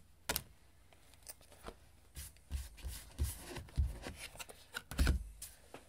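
Tarot cards being dealt from the deck and laid face up on a table: a sharp snap just after the start, then a run of soft slaps and thumps as cards are flipped, put down and slid into place, the loudest about five seconds in.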